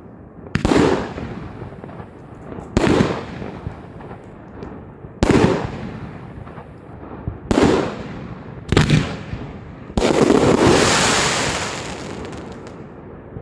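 Klasek consumer firework batteries going off: five loud bursts spaced one to two and a half seconds apart, each dying away quickly, then a longer, denser burst about ten seconds in that fades over about two seconds.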